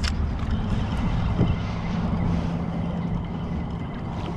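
Wind buffeting the microphone over water lapping around a wading angler, with a steady low hum that comes in about a second in.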